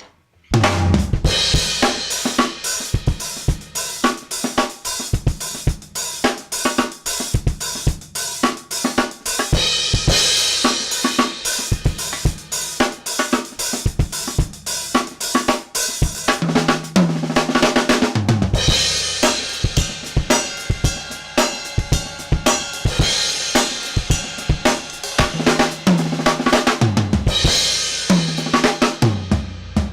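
Acoustic drum kit played continuously: kick drum, snare and hi-hat/cymbal grooves with tom fills, starting about half a second in.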